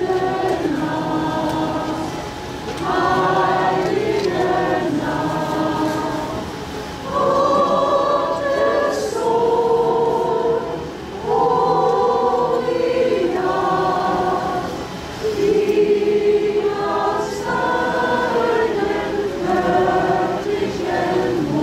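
A group of voices singing a Christmas carol together, in slow phrases of held notes a few seconds long with brief breaths between them.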